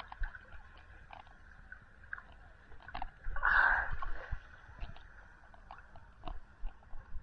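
Seawater sloshing and lightly splashing around a swimmer, with scattered small splashes and one louder splash about three and a half seconds in.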